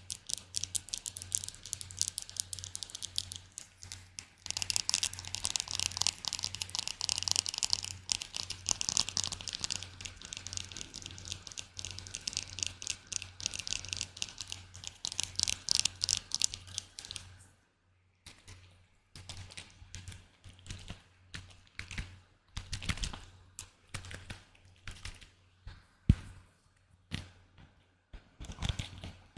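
Close-miked ASMR tapping: a long run of rapid, dense, crisp taps, which about seventeen seconds in gives way to slower, separate taps with duller knocks and short pauses between them.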